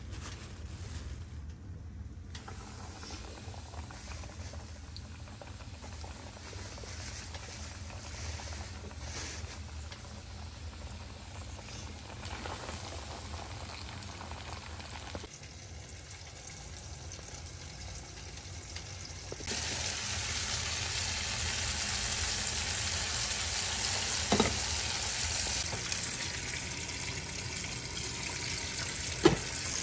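Chicken deep-frying in a pot of oil: a steady bubbling sizzle that gets much louder about two-thirds of the way in. A low hum runs underneath, and two sharp knocks come near the end.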